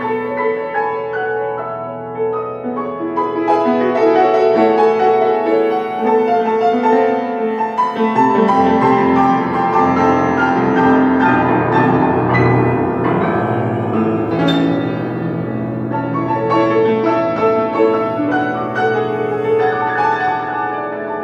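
Piano playing a slow, sustained piece; about eight seconds in the notes thicken into a dense, louder passage, then thin out again in the last few seconds.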